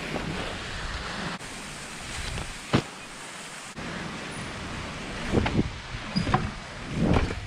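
Wind on the microphone over the rolling of an Inspired Fourplay street trial bike's tyres. There is one sharp knock nearly three seconds in, then a run of knocks near the end as the bike's front wheel is hopped up onto a wooden bench.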